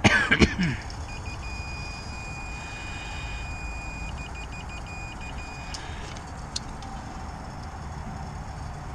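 Multimeter continuity beeper sounding a steady high tone for about four and a half seconds, stuttering into quick chirps as it starts and again midway, while the meter leads are on the heat pump compressor's windings. A brief clatter of handling noise comes just before it.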